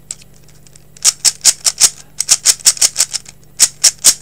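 Dayan Zhanchi 3x3 speed cube being turned quickly in the hands, its plastic layers clicking in fast runs of about five or six turns a second, starting about a second in with a brief pause near the end. The cube is loose and light, its tension not yet adjusted.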